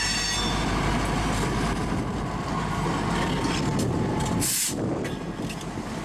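Diesel locomotive of the Angelina & Neches River Railroad, No. 2000, running slowly past with a low engine rumble and wheel-on-rail noise. A short, sharp hiss sounds about four and a half seconds in.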